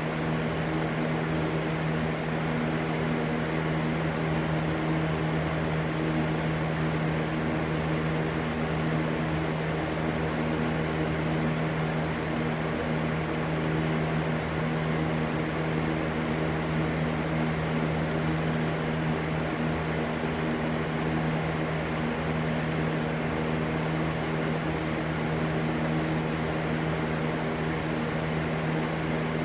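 Steady, unchanging rushing noise with a constant low hum running through it.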